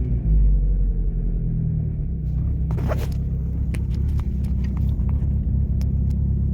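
Car engine with a louder aftermarket exhaust, upgraded cams and a better air intake, heard from inside the cabin as a steady low drone. About three seconds in there is a brief rustle, followed by scattered light clicks.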